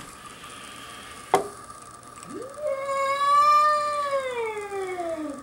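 A single sharp knock, then a cat's long cry of about three seconds that rises quickly at the start, holds, and slides down in pitch at the end.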